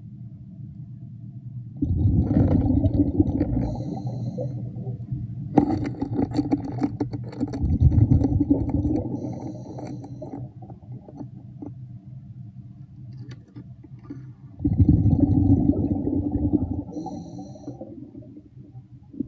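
A diver's breathing regulator underwater: exhaled air bubbling out in three rumbling bursts of two to three seconds each, about 2, 6 and 15 seconds in, with faint hisses of inhaled air between them.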